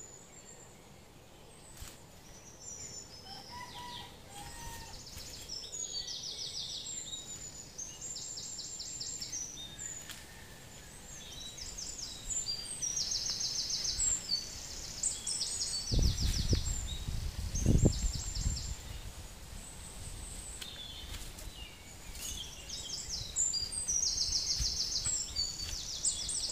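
Small birds singing over and over: short high buzzy trills and chirps in quick succession. A few low thumps come about two-thirds of the way through.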